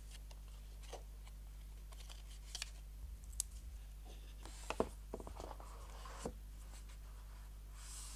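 Faint handling sounds: scattered light clicks and taps, with a soft scraping stretch past the middle, as hands handle an iPhone, its USB-C to Lightning cable and its cardboard box, over a low steady hum.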